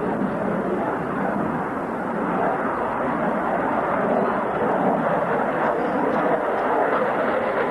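Jet noise from a fighter jet flying aerobatic manoeuvres close overhead: a steady, even rush with no sharp rise or fall.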